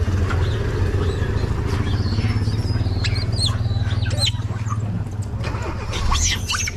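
A motor vehicle engine idling steadily. From about halfway through, several short high-pitched squeals sound over it.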